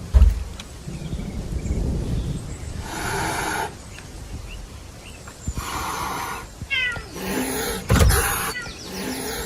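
Domestic cats fighting: several hisses, a few short meows, and two heavy thumps, one just after the start and one near the end.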